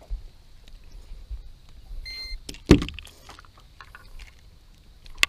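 Handling noises while a bass hangs from a handheld digital fish scale: a short electronic beep about two seconds in, the scale registering the weight, then a loud thump a moment later, with light clicks and rattles throughout.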